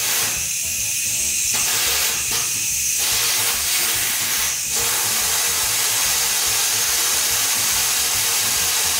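Electric pressure cooker's steam-release valve held open, venting steam in a loud, steady hiss: a manual quick release while the pot is still under pressure. The hiss thins twice in the first few seconds, then runs on evenly.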